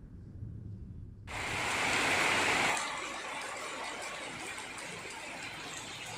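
Heavy rain hissing, cutting in suddenly about a second in over a low rumble. It is loudest for the next second and a half, then runs on as a steady downpour.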